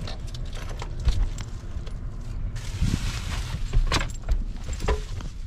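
Knocks, clicks and rustling from a camera strapped to a golden retriever puppy's harness as the dog moves over the truck's seats, with a loud thump about a second in and a brief rustling hiss midway. A steady low rumble of the vehicle cabin runs underneath.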